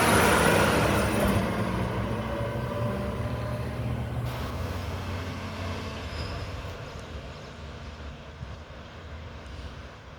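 Mack front-loader garbage truck's diesel engine running as the truck drives off, loudest at the start and fading steadily as it pulls away.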